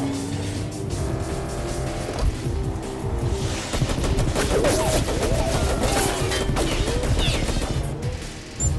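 Action-film soundtrack: the orchestral score plays over car engines and rapid gunfire from car-mounted guns, with pitch glides from about four and a half to seven seconds in.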